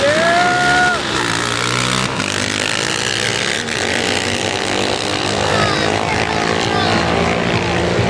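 A Honda TRX700 quad's single-cylinder engine and a KTM dirt bike's engine run at full throttle as the two race side by side down a drag strip, steady and heard from the stands. A drawn-out yell rises and holds for about the first second.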